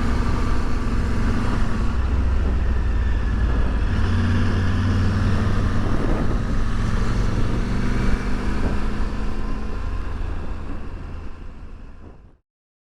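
Motorcycle engine running steadily on the road with wind and road noise. It fades out near the end.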